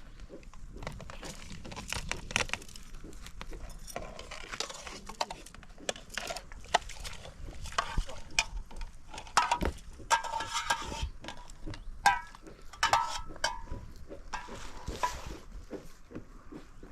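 Dishes and metal utensils clinking and knocking, in many scattered sharp strikes.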